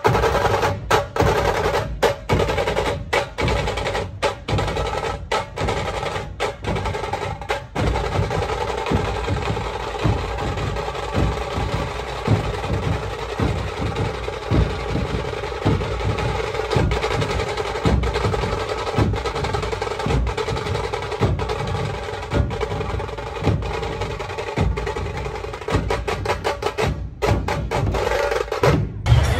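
Dhol-tasha drum troupe playing: large two-headed dhol barrel drums beat a heavy, steady rhythm under fast rolls on the smaller tasha drums.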